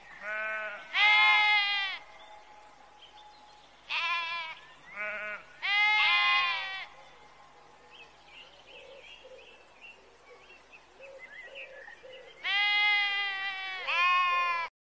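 Sheep bleating, about seven calls in three bunches, loud at the start and near the end, with a quieter gap in the middle.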